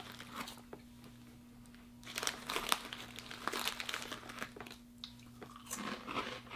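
Foil snack bag crinkling and Bacon Fries crunching as they are bitten and chewed, an irregular crackle starting about two seconds in.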